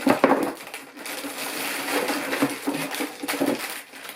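Sealed plastic bags of LEGO pieces being handled and sorted, the loose bricks rattling and clattering inside them, with a loud clatter right at the start.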